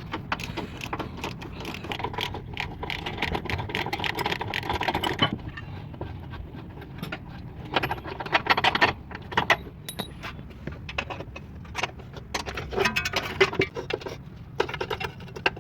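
Irregular metallic clinking and rattling, many sharp clicks in uneven clusters, over a low steady hum.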